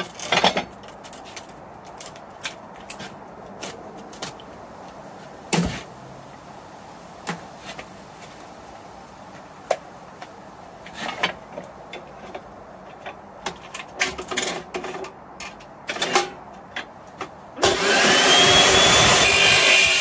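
Metal tube knocking and clicking as it is handled and clamped in the vise of an abrasive chop saw. Near the end the chop saw starts, its whine rising as it spins up, and the cut-off disc grinds loudly into the round metal tube, stopping abruptly.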